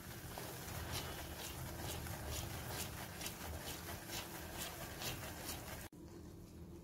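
Red silicone spatula stirring and scraping a thick semolina, sugar and milk-powder mixture around a nonstick pan, about two strokes a second, as the mixture cooks down in ghee. The sound cuts off abruptly near the end.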